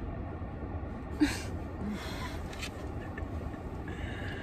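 Steady low rumble inside a parked car's cabin, with one short sharp sound about a second in.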